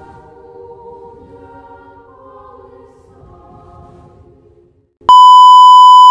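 Slow choir-like music holding sustained chords, growing fainter. About five seconds in it stops and a loud, steady, high beep sounds for about a second: a broadcast test tone under colour bars.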